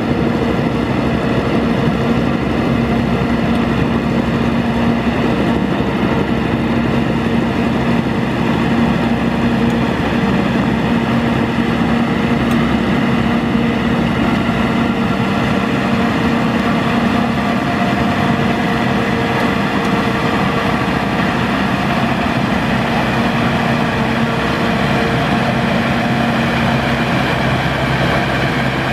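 Engine of a Maxxi WD3100 crawler rotary tiller (rotavator) running steadily under load while it tills a flooded rice paddy, with an even, unbroken drone.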